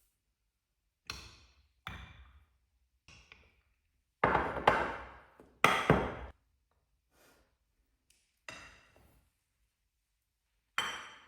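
A series of separate knocks and clinks of hard objects, each ringing briefly, as of things being handled and set down. Two longer, louder clatters come about four and six seconds in.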